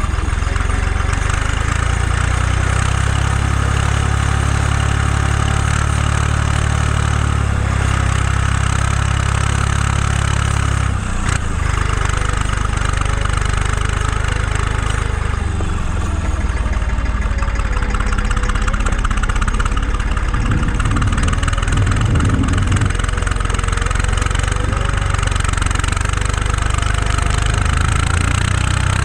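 Lindner 1600A tractor's diesel engine running while driving, heard close to its vertical exhaust stack. The engine note steps up about three seconds in and dips briefly around the middle.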